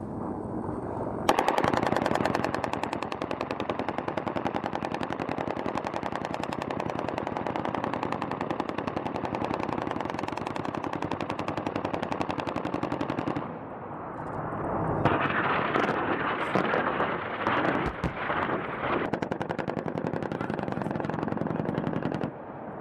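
Rapid automatic cannon fire from an AH-1Z Viper's 20 mm three-barrel rotary cannon. A long run starts about a second in and stops about halfway through. After a short pause it fires again, louder, until just before the end.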